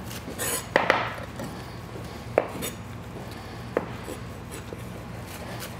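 Chef's knife slicing green onions on a wooden cutting board: a few separate knocks of the blade on the board, then a run of quick, light taps near the end.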